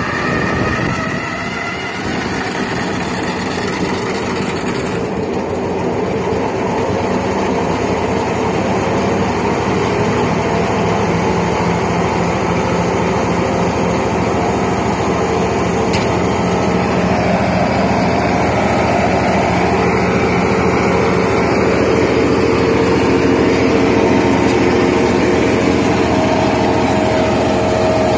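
Morbark M6 wood chipper running steadily at working speed, its engine and drum giving a loud, even drone. The pitch wavers in the first couple of seconds, and the sound grows slowly louder through the middle.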